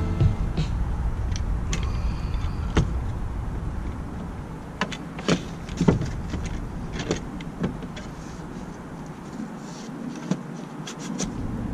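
Scattered knocks, clicks and scrapes of a new window being fitted into the cut-out in a step van's side wall, over a low background noise that fades during the first few seconds.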